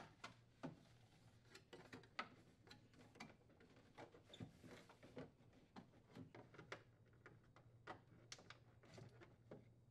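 Near silence with faint, scattered clicks and light taps of plastic parts being handled: the freezer's plastic air duct and its wire connector being fitted and snapped into place.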